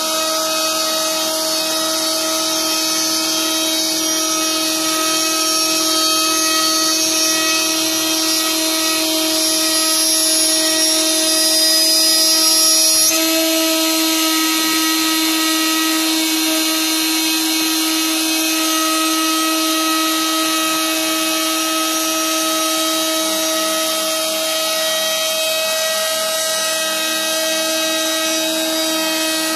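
Trim-router spindle on a Shapeoko CNC machine running at a steady high whine while its bit mills a truss rod channel in a wooden guitar neck blank. The tone shifts slightly about halfway through.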